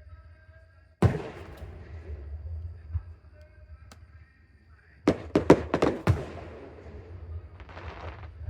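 Aerial fireworks exploding: one loud bang about a second in, then a rapid run of about eight bangs a little after halfway, followed by a short hiss near the end.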